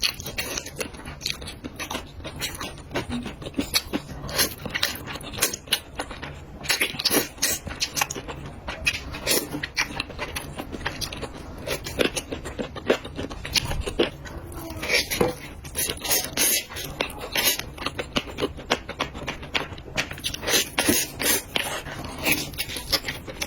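Close-miked eating: a person chewing jajang noodles and fried chicken, with a dense, irregular run of crisp clicks and crackles throughout.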